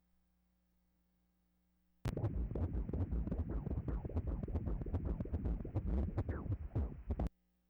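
Ultrasound machine's Doppler audio of a 22-week fetal heartbeat: a rapid, rhythmic whooshing pulse that switches on suddenly about two seconds in and cuts off abruptly about five seconds later.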